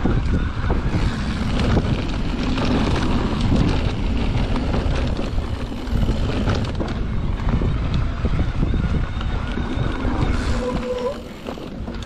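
Wind buffeting the microphone and a mountain bike's tyres and frame rattling over a dirt trail on a fast descent. A short squeal sounds near the end, and then the noise drops as the bike slows.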